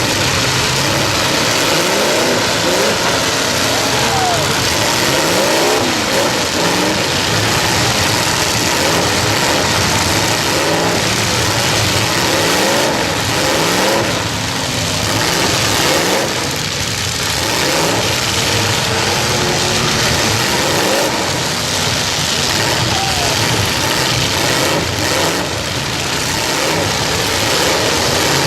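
Several demolition-derby truck engines revving and running at once, their pitches repeatedly rising and falling over steady engine noise.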